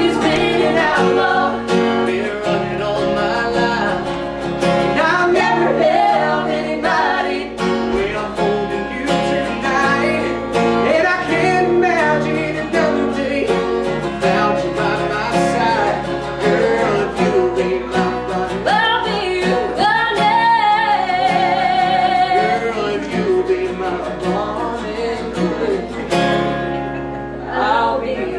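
A man and a woman singing a song together, with the man strumming an acoustic guitar.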